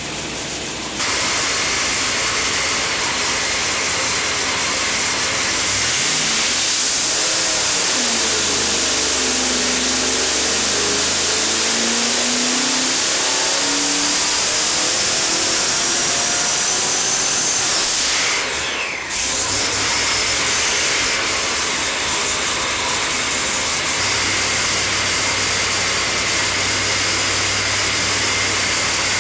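Supercharged small-block V8 on an engine dyno, running loud. Its pitch dips and climbs again, then a high whine rises in pitch and cuts off sharply about 18 seconds in, after which the engine settles to steadier, lower running.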